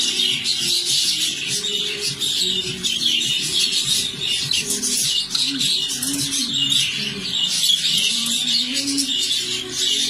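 A flock of budgerigars chattering and warbling together, a dense, unbroken stream of quick chirps and twitters.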